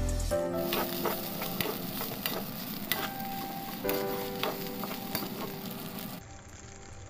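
Fried rice sizzling in a pan as a stainless steel ladle stirs and scrapes through it. Frequent sharp clicks come from the ladle knocking against the pan.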